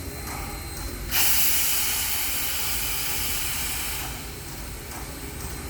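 Southern Railway 4501, a 2-8-2 Mikado steam locomotive, venting steam: a sudden loud hiss starts about a second in, eases slightly and dies away about three seconds later.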